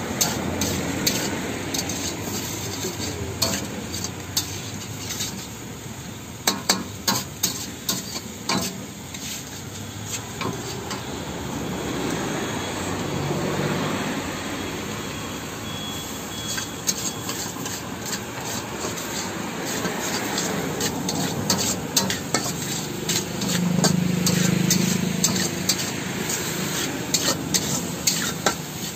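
A spatula scraping and clacking against a wok as gobi manchurian is stirred, in runs of quick knocks, over a steady sizzle of frying.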